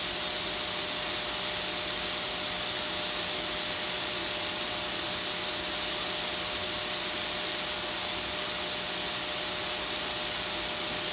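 Chicken pieces sizzling in a stainless steel frying pan on an induction hob: a steady hiss, with a faint steady hum underneath.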